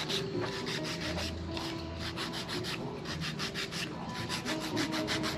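Hand nail file rasping across a fingernail in quick, even back-and-forth strokes, several a second, as the nail is shaped.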